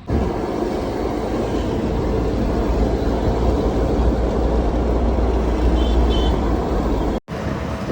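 Steady road and engine rumble inside a moving car, with a few short, high beeps about six seconds in. The sound cuts out for an instant near the end.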